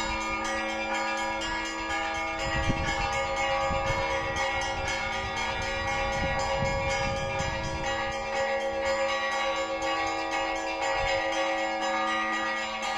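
Church bells ringing together, many overlapping tones sounding and sustaining at once. A low rumble runs underneath from about two to eight seconds in.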